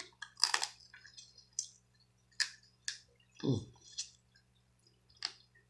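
Cooked blue crab shells being cracked and picked apart by hand while eating: a string of short, sharp crackles and wet clicks at irregular intervals.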